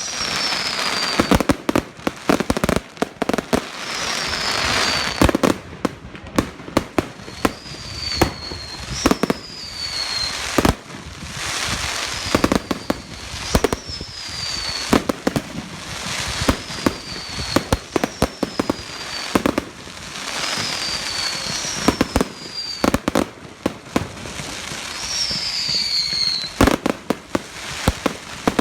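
Fireworks going off in quick succession: dense sharp bangs and crackling, with a short whistle falling in pitch every second or two.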